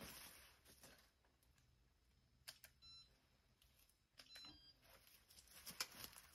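Faint short electronic beeps from digital forestry calipers as diameter readings are logged, about three seconds in and again just after four seconds, with a few light clicks and rustles from handling the calipers.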